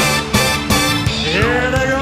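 Live rock band playing loudly, with hard drum hits about every third of a second over a steady bass line. In the second half a held note bends in pitch.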